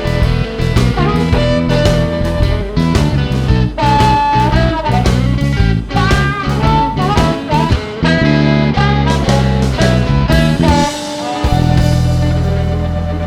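Outro music: guitar-led instrumental with a steady beat, ending about 11 s in on a held chord that fades away.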